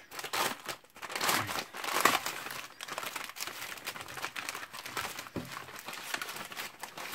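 Clear plastic packaging crinkling and rustling as it is handled and opened, loudest about a second or two in.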